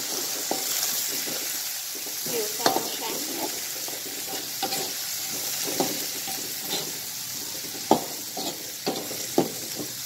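Chopped aromatics (chili, shallot, galangal, bay leaf) sizzling in hot oil in a wok, a steady high hiss. A metal spatula stirs them, scraping and knocking against the wok with irregular clinks; the loudest knock comes about eight seconds in.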